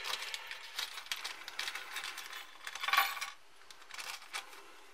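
Small metal parts of a salt grinder mechanism (screws, a spring and fittings) clinking and jingling as they are handled, with a louder clatter about three seconds in.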